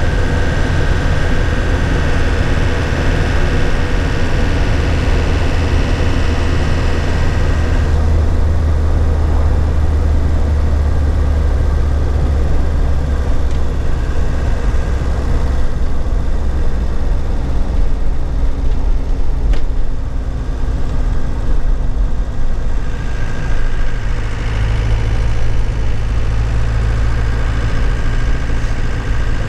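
2001 Nissan Cabstar truck's engine running while driving, heard from inside the cab. The higher part of the engine noise falls away about eight seconds in, and the engine note picks up again a few seconds before the end.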